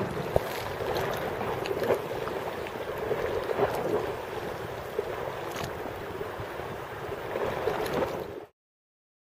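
Small sea waves lapping and splashing at the shoreline, a steady wash with a few sharper splashes. The sound cuts off abruptly near the end.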